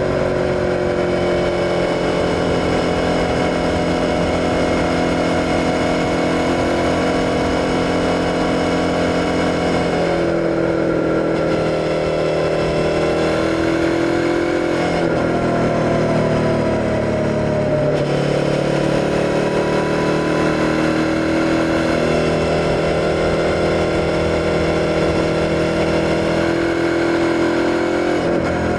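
Suzuki SV650's 90-degree V-twin engine running under way at a fairly steady pitch, with no wind noise. About a third of the way in the pitch sags and comes back, and again a few seconds later.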